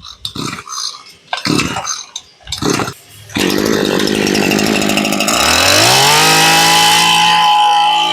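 Tanaka 23 cc two-stroke brush cutter engine being pull-started: a few short pulls of the recoil starter, then it catches about three seconds in. It idles briefly, then revs up to a high, steady speed on the throttle.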